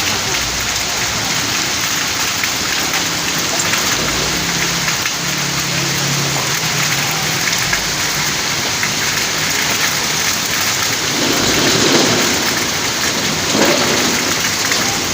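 Heavy rain pouring down, a steady dense hiss of rain on surfaces.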